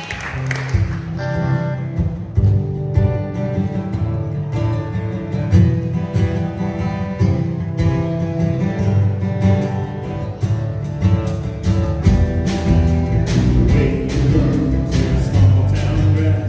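Live acoustic guitars and an electric guitar playing a song together, strummed in a steady rhythm.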